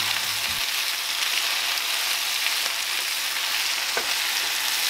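Fresh spinach sizzling in hot olive oil in a nonstick skillet, a steady frying hiss as the leaves wilt. A utensil stirs and turns the leaves, with a light tap against the pan about four seconds in.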